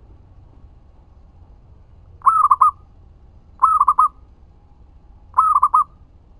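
Zebra dove (perkutut) cooing: three short phrases, each a quick run of three or four notes, spaced a second or two apart.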